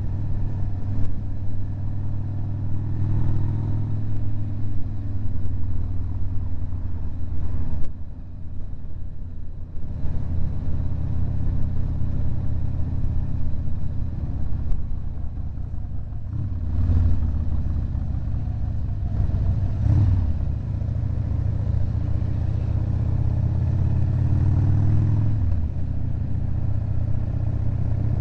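Harley-Davidson V-twin engine running under way with wind noise. The engine note climbs several times as the rider accelerates, with a short quieter stretch about eight seconds in when the throttle is rolled off.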